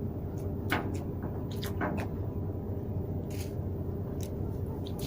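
A boat engine running steadily with a low hum, with a handful of short sharp clicks and knocks over it.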